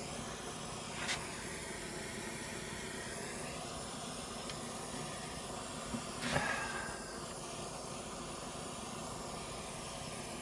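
Gas torch flame hissing steadily while heating a brass tray for soft soldering, with a couple of light knocks, the louder one about six seconds in.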